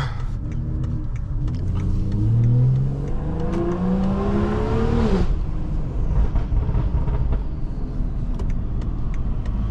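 Tuned BMW 540i turbocharged straight-six, with catback exhaust and aftermarket downpipe, accelerating: the engine note climbs in pitch for several seconds and drops off sharply a little past halfway as the throttle is let off. After that comes steadier engine and road rumble.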